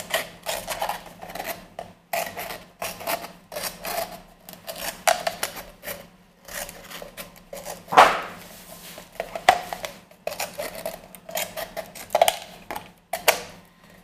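Scissors cutting a thin plastic drink bottle into strips: a run of irregular crackling snips with the crinkle of the thin plastic, the loudest cut about eight seconds in.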